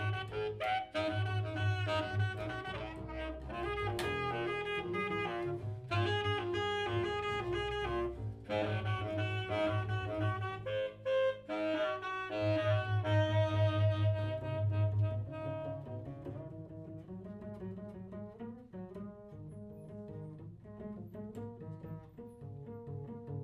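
Saxophone playing a contemporary piece meant to evoke elephant cries: quick-changing notes over a loud, sustained low second voice. From about sixteen seconds in, the upper part thins out and the music gets quieter, leaving mostly lower notes.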